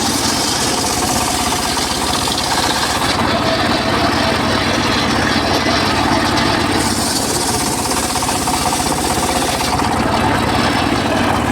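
Homemade circular saw rig running while teak wood is sawn: a steady, fast-knocking engine-like beat under the saw noise. The high hiss drops out twice for a few seconds.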